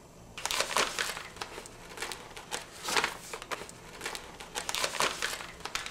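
Paper being handled, rustling and crinkling in irregular crackles that start about half a second in.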